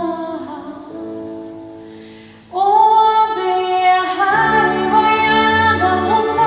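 A woman singing into a microphone with instrumental accompaniment, live through a theatre's sound system. The music dies away to a low ebb about two and a half seconds in, then a loud held sung note starts a new phrase, with deep bass notes coming in about a second and a half later.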